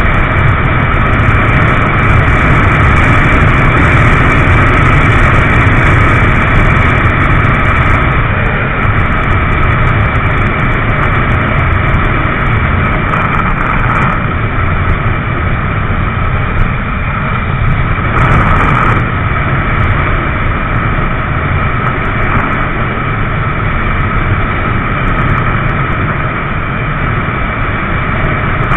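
A motorcycle riding at freeway speed, its engine running steadily under heavy wind noise on the microphone. The sound stays loud and even throughout, easing slightly after about eight seconds.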